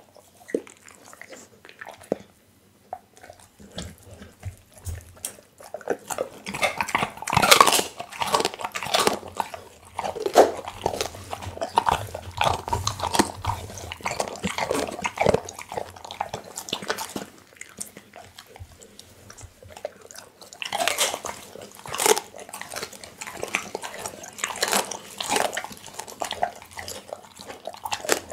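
Pit bull chewing and biting raw meat and bone close to a microphone: wet smacking with crunching bites. The bites are sparse for the first few seconds, come thick and fast from about six seconds in, ease off briefly, then pick up again.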